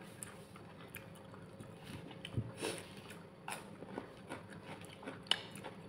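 Close-miked mouth sounds of someone chewing grilled chicken: soft, scattered smacks and wet clicks.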